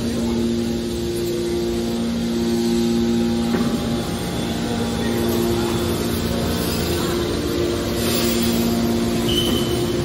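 Hydraulic scrap-metal baler's power pack running: electric motors driving the hydraulic pumps with a steady hum of two held tones over a mechanical rumble.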